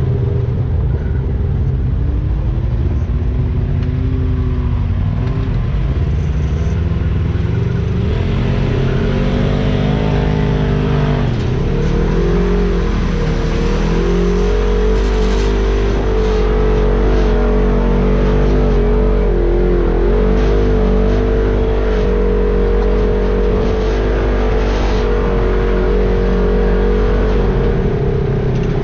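An off-road vehicle's engine running under changing throttle, its pitch rising and falling over a steady low rumble.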